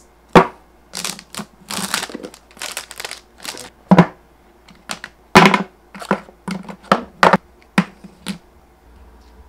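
Unboxing an iPhone XS Max: plastic shrink-wrap crinkling and the cardboard phone box being handled and its lid lifted off, heard as short rustles and a quick series of sharp clicks and taps.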